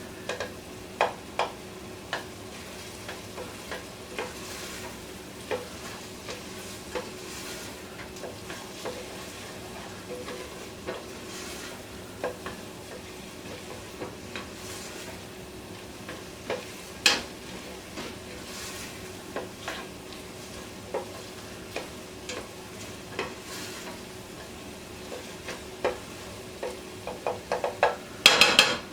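Diced onions sizzling in butter in a pot while a spoon stirs and scrapes, giving scattered clicks over the steady frying. A faint steady hum runs underneath, and near the end comes a quick run of louder knocks of the utensil against the pot.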